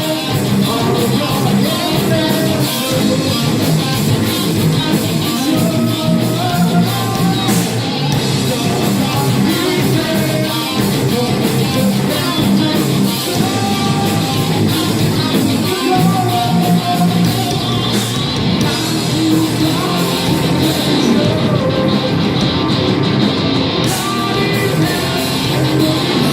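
Heavy metal band playing live: electric guitars and drums with a vocalist singing.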